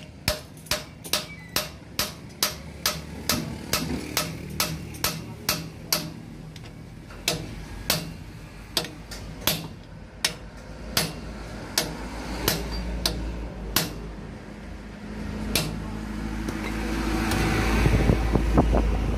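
Steel hammer striking a punch held against a truck's wheel hub nut: sharp metal-on-metal blows at about two to three a second, with a short pause about six seconds in, thinning out after fourteen seconds. A low rumble builds near the end.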